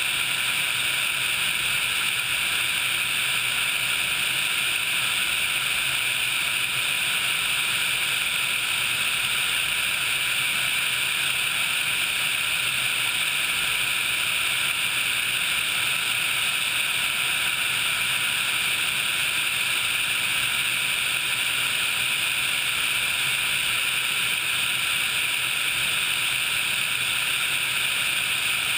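HH-60 Pave Hawk helicopter in low-level flight, heard from a camera mounted outside the airframe: a steady, unbroken rush of engine and airflow noise with a faint steady tone in it.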